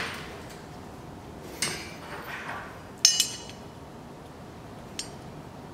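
Steel bracket being handled and set in place, giving a few metallic clinks and knocks. The loudest comes about three seconds in and rings briefly.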